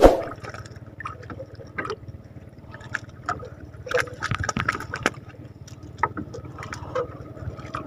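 Knocks and clicks of a freshly caught fish and tackle being handled against the floor of a small boat, with the loudest sharp knock at the very start. Water laps at the hull underneath.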